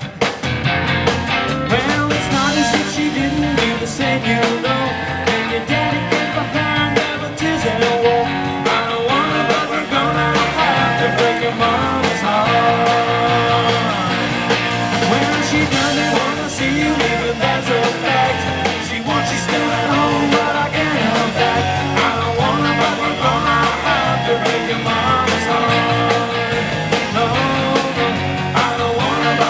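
Live rock band playing an instrumental break: electric guitars with bending lead lines over electric bass and a drum kit.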